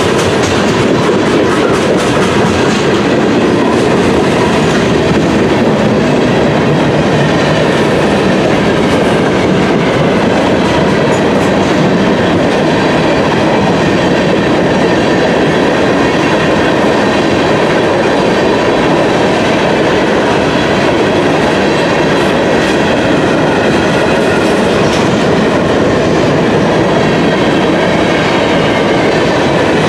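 Freight train's covered hopper cars rolling past at close range: a steady, loud rumble of steel wheels running on the rails.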